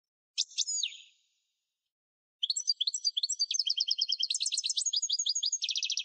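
A canary singing, high-pitched. A short call comes about half a second in, then from about two and a half seconds a long song of rapid trills, each run of repeated notes giving way to another at a different speed.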